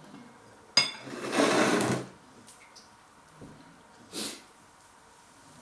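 A metal spoon clinks once against a ceramic bowl, with a short high ring, followed at once by a loud breathy rush lasting under a second; a shorter, fainter breathy hiss comes about four seconds in.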